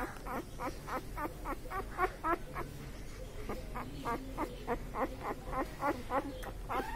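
Newborn puppies squeaking and whimpering in their sleep: a continuous run of short, high squeaks, about four a second, with a longer whine near the end.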